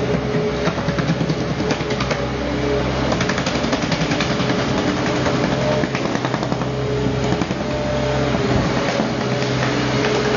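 New Holland L160 skid steer's engine running at a steady speed, with a dense clattering rattle over the engine note.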